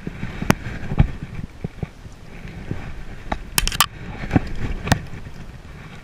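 Fly line being stripped and cast: a dozen or so sharp clicks and knocks at uneven intervals, bunched about three and a half seconds in, over a steady background hiss.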